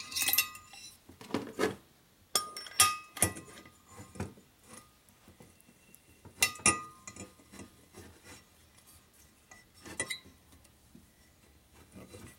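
Metal valve-train parts clinking: valve springs and collars being seated on a shovelhead cylinder head, and a C-frame valve spring compressor being fitted over it. A series of separate sharp clinks and clicks, some ringing briefly.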